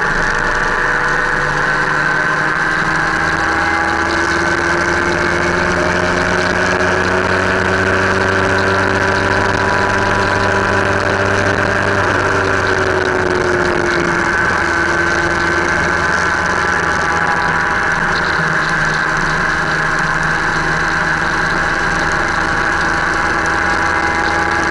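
Motorcycle engine running at a steady cruise, heard from the bike itself, its pitch drifting and dipping briefly about halfway through as the throttle eases. Wind rush on the microphone and tyre noise run along underneath.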